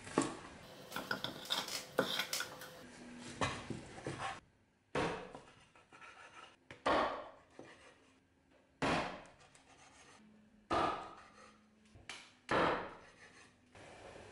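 Butcher cleaver chopping through a rack of lamb ribs onto a wooden board: a quick run of cuts and knocks, then single chops about every two seconds.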